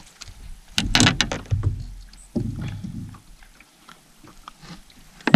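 Knocks and dull thumps in a small fishing boat as a freshly landed crappie is handled aboard: a quick cluster of sharp knocks about a second in, a duller thump a couple of seconds later, and one more knock near the end.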